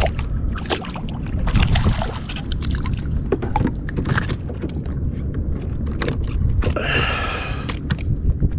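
Wind rumbling on the microphone, with water splashes and scattered knocks and clicks as a small fluke is swung out of the water and handled beside a plastic kayak. There is a brief higher-pitched sound about seven seconds in.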